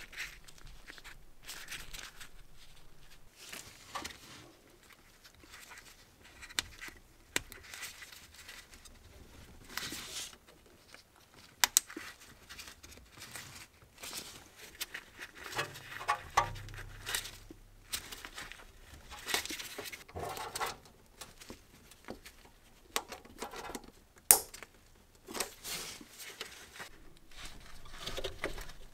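Handling noises while the Airmatic compressor's small plastic air filter is fitted by hand: irregular rustling of gloved hands and plastic, with scattered sharp clicks, two of them louder, about 12 and 24 seconds in.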